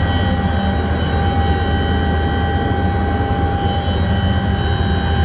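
Helicopter running in flight, heard from inside the cabin: a steady low drone of the rotor with the engine's high, steady whine over it.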